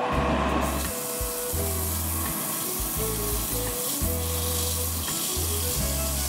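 Sandpaper held against the rim of a cedrinho wood disc spinning on a small wood lathe: a steady hiss that starts about half a second in, over background music.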